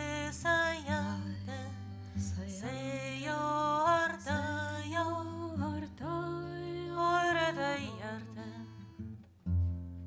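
A woman singing a slow melody with vibrato, accompanied by an acoustic guitar, with a short break in the voice about nine seconds in.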